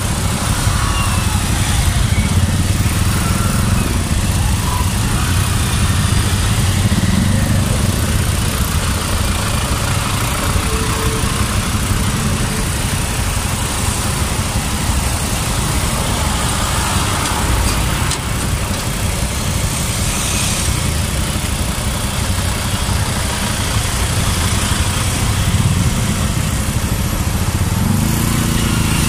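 Motorcycle engine idling close by, with other vehicle engines running around it in slow, stop-and-go traffic: a steady low rumble.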